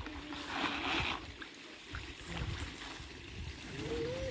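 Koi pond water splashing briefly about half a second in, over a low rumbling noise.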